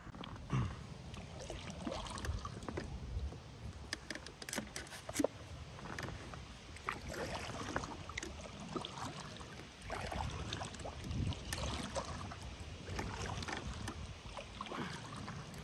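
Kayak paddle working the water: the blades dipping in with irregular splashes and drips running off the paddle.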